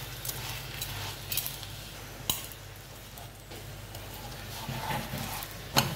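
A metal spatula clicking and scraping against a frying pan as a paratha is moved and turned in it, a few sharp clicks spread through, the loudest near the end.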